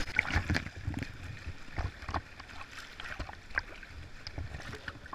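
Whitewater kayak running a rapid, heard from a camera mounted on the boat: faint rushing water with scattered sharp knocks and splashes against the hull and paddle.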